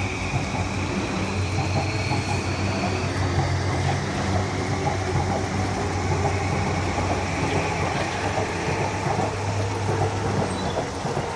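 Yamanote Line E235-series electric train accelerating away from the platform. Its traction motors whine, rising in pitch as it gathers speed, over a steady low rumble of wheels on rail.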